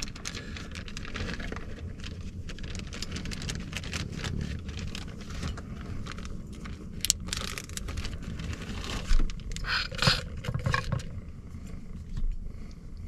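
Utensil stirring and scraping thick chili mac with meat in a small pan on a Jetboil camp stove: irregular scrapes and clinks, with louder clatters about seven seconds in and again around ten seconds in.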